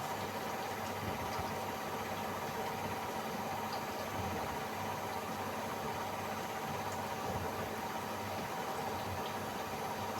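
Samsung AddWash WW70K5410WW front-loading washing machine running its spin-and-drain cycle: a steady mechanical hum with a few even tones and no change in pitch.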